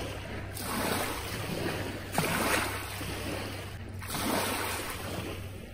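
Small waves breaking and washing up onto a sand and pebble beach, a new wash swelling in every couple of seconds.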